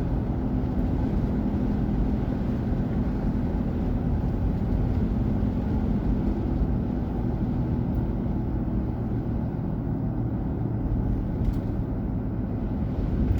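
Steady engine and road noise inside the cabin of a moving car: a constant low rumble.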